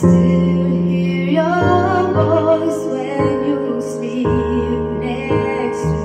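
A woman singing into a handheld microphone over a backing track of sustained keyboard chords that change about once a second.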